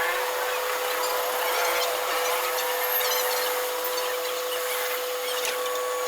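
Metal lathe running with a steady whine, over a dense scraping rasp and small ticks of a tool working metal.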